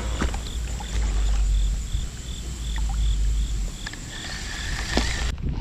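Low rumble of wind and water around a kayak, with a faint, even ticking about three times a second from a fishing reel being cranked on a retrieve. A short steady tone sounds late on, and the sound cuts out abruptly just before the end.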